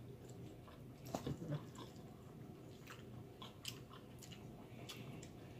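Faint chewing of food, with a few soft mouth clicks scattered through it.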